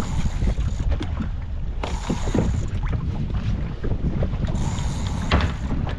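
Wind rumbling on the microphone aboard a fishing boat under way at sea, with a few short knocks.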